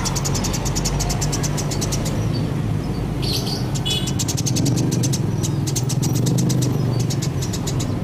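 Sparrows chirping in quick, rapid runs of short high chirps, with a few louder call notes about three to four seconds in, over a steady low engine hum.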